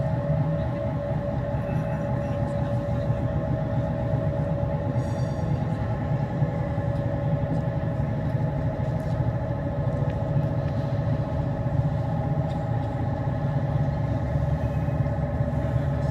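Low electronic drone of several held tones over a deep rumble, played over loudspeakers as the soundtrack of a light projection show.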